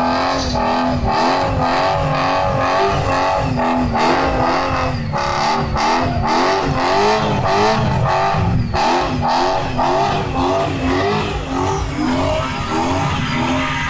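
Drift cars sliding sideways on smoking tyres. The engines are revving hard, their pitch wavering up and down every half second or so, over a continuous rush of tyre noise.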